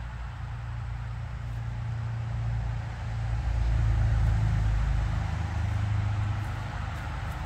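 Low rumble of a motor vehicle on a nearby road, swelling to its loudest about halfway through as it passes, then easing.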